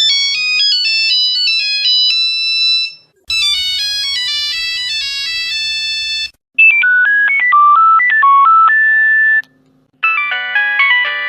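Four different Nokia mobile phone ringtones, each a short electronic melody of about three seconds, played one after another with brief gaps between them.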